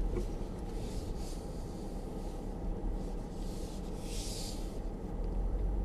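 Low, steady in-cabin rumble of a Mercedes-Benz GL-Class crawling slowly along a rough dirt track. A brief high scraping hiss comes about four seconds in, with a fainter one about a second in.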